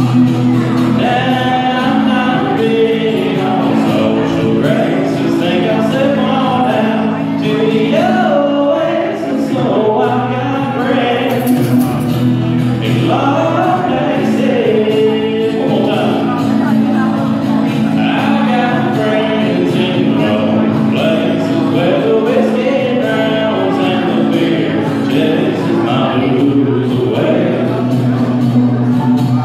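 A man singing a country song into a microphone, accompanied by a strummed acoustic guitar.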